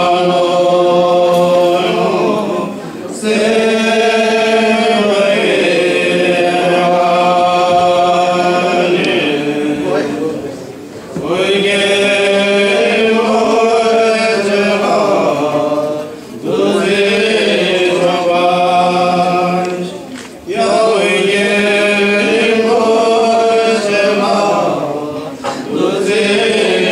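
Several voices chanting together in unison in long, drawn-out melodic phrases, pausing briefly every four to six seconds.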